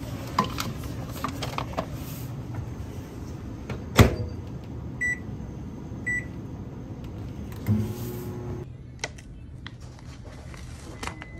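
Convenience-store microwave oven being used: its door shuts with a sharp clunk, then two short high keypad beeps as the time is set, and a thump followed by a steady low hum as it runs. After that come a few light clicks and rustles as the paper lid is peeled off the heated cup.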